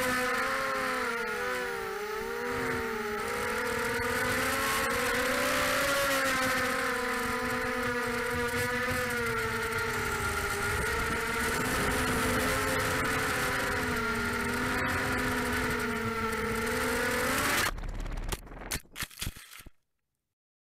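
Brushless motors and propellers of a 250-size FPV racing quadcopter whining, heard from its onboard camera, with several tones wavering up and down as the throttle changes. The whine cuts off suddenly near the end and is followed by a few sharp knocks and clatter as the quad hits the trees and comes down.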